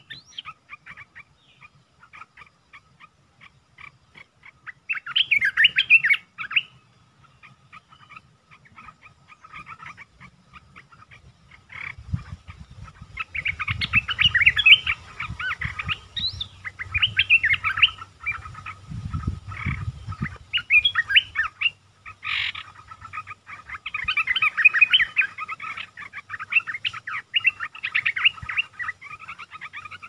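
Olive-winged bulbul singing in bursts of quick, bubbly chattering phrases. One short burst comes about five seconds in, then after a pause the phrases come almost without a break through the second half.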